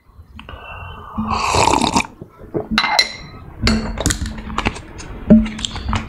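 Electronic logo-intro sting: a noisy whoosh that swells up over the first two seconds, then a run of sharp hits with deep booms, the loudest a little past five seconds in.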